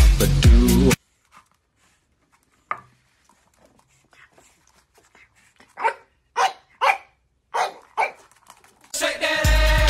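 Small fluffy puppy barking, a string of about five short yaps in quick succession.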